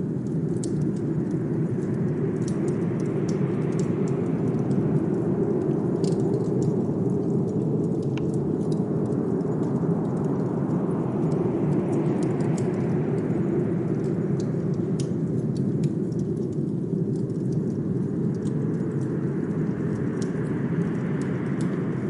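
Blizzard wind blowing over a steady low rumble, swelling and fading in slow gusts about every eight seconds. Scattered small crackles and pops of a wood fire run through it.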